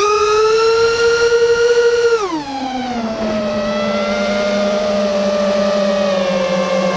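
Racing quadcopter's four DYS 2205 brushless motors spinning 5-inch three-blade props: a loud whine starts suddenly as the quad punches up off the ground and holds high for about two seconds. It then drops in pitch to a steady lower whine as the throttle eases into forward flight.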